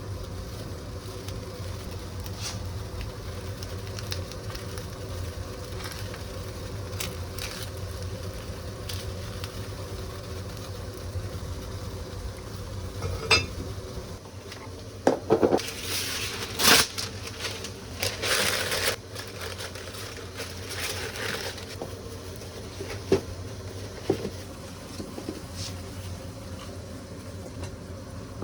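Kitchen cookware and utensils clattering and scraping, with a cluster of sharp knocks about halfway through and a few light clicks later. A steady low hum runs under the first half and then stops.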